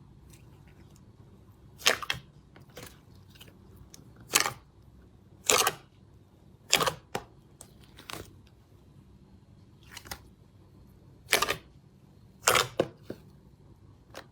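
Slime being squeezed and pressed by hand, giving short, sharp sticky pops and crackles about once a second, some in quick pairs, with quiet between them.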